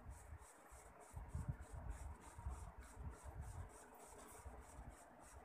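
Rice-flour bottle-gourd fritters deep-frying in hot oil: a faint, steady sizzle with fine crackling, and a few soft low bumps.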